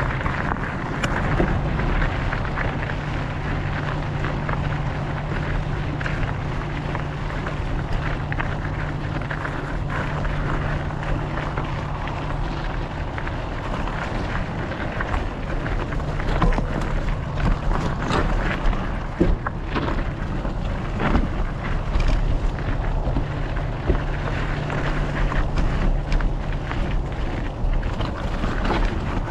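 Wind noise on an action camera's microphone while riding a Specialized Epic Evo mountain bike over a dirt and gravel trail, with the tyres crunching and the bike rattling. From about the middle on there are frequent sharp knocks as it runs over rocky ground.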